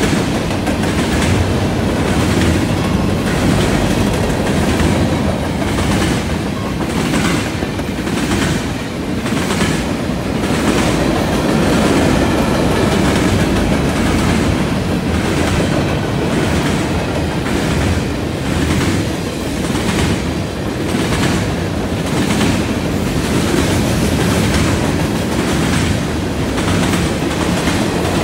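Freight train cars (covered hoppers and tank cars) rolling past with a steady rumble. The wheels clack regularly, about once a second, as they cross the junction switch and rail joints.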